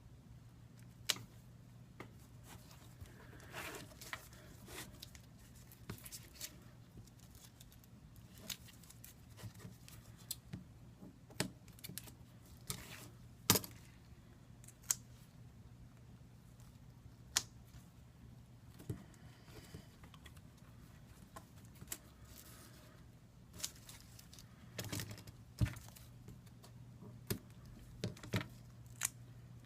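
Scattered small clicks, taps and brief rustles of hands working with small parts and tools, over a steady low hum.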